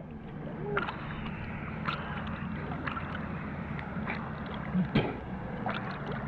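Lake water lapping against a camera at the surface, with a soft slap or splash about once a second, over the steady low hum of a boat motor.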